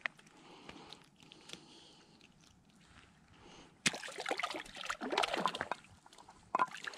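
A small yellow perch splashing and sloshing in the water of an ice-fishing hole. The splashing starts suddenly about four seconds in and lasts a couple of seconds, with a click near the end.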